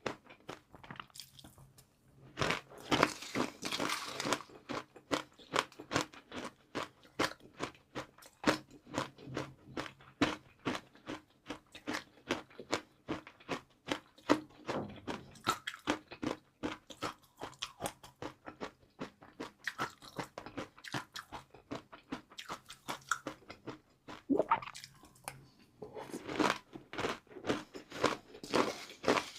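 Close-miked crunching and chewing of crispy fried noodles: a dense run of quick crackles, with louder bouts of crunching a few seconds in and again near the end.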